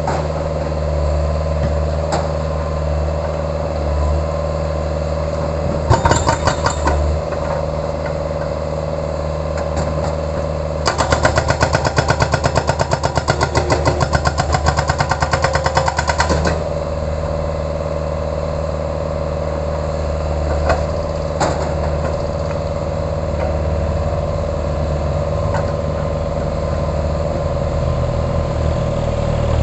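Sunward 80E9 mini excavator's diesel engine running steadily while its hydraulic breaker hammers in rapid, even blows: a short burst about six seconds in, then a longer run of about five seconds from around eleven seconds in. A few single knocks fall between.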